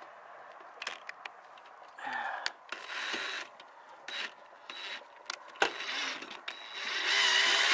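Scrapes, knocks and clicks of tools being handled against a ribbed steel roof panel. A Craftsman cordless drill runs briefly near the end, the loudest part.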